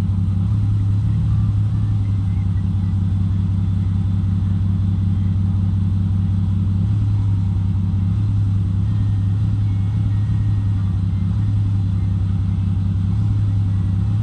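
Toyota Supra engine running steadily at a constant low speed, a continuous low hum with no revving; the owner suspects a misfire.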